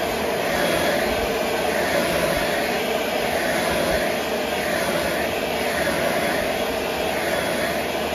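Electric heat gun running steadily, blowing hot air over freshly airbrushed white paint on metal spinner blades to set it: a constant rush of air with a humming note in it.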